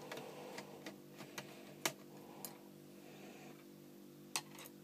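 Small sharp clicks and ticks of a screwdriver working the fan screws in a laptop's plastic base, scattered and irregular, with two louder clicks about two seconds in and near the end.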